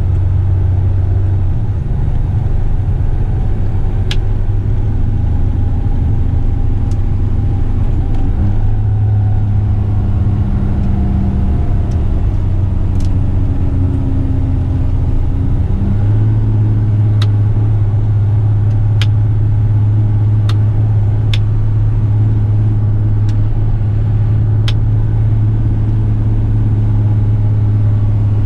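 Heavy rigid truck's diesel engine running steadily while driving, its note shifting about a third and about halfway through. A few sharp clicks come at uneven intervals over it.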